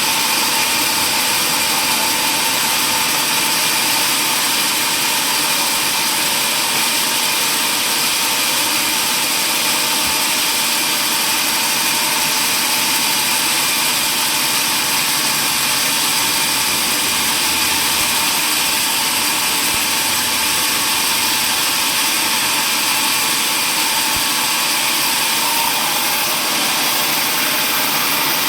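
Sawmill woodworking machinery running steadily at constant speed: an even whir with a few steady tones and no cut or change in pitch.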